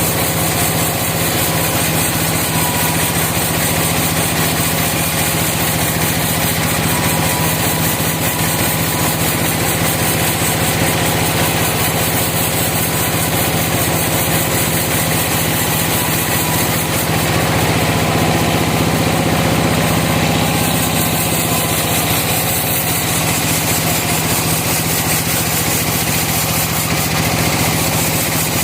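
Sawmill engine running steadily at a constant speed. It grows slightly louder and brighter for a few seconds past the middle.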